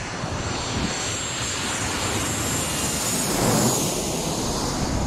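Airliner on its landing approach passing low overhead. The engine noise swells to its loudest about three and a half seconds in and falls in pitch as the plane goes past.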